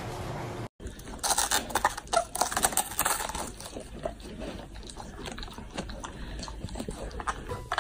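Golden retriever biting and chewing a raw cabbage head: a run of crisp, wet crunches, densest in the first few seconds and thinning out later.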